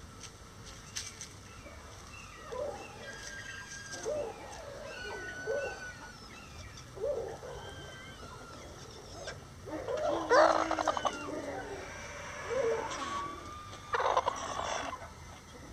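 Bantam chickens clucking in short, low calls every second or two, with a louder, rougher call about ten seconds in and another near the end.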